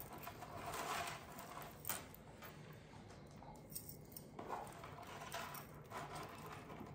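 Faint rustling and a few light ticks of artificial floral stems and leaves being handled and tucked into a wooden dough bowl, with one sharper tick about two seconds in.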